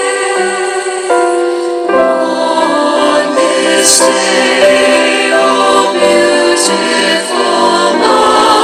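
Background music: a choir singing slow, held chords that change about once a second.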